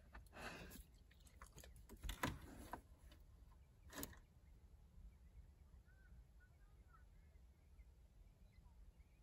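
Near silence: outdoor ambience with a low rumble. A few soft rustles and clicks come in the first four seconds, the strongest about two seconds in, and faint short chirps follow in the second half.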